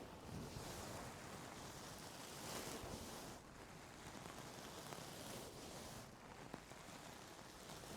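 Close-up ear-cleaning sounds: faint, soft rustling and scraping of ear-cleaning tools in the ear canal, swelling and fading irregularly, with a faint click near the end.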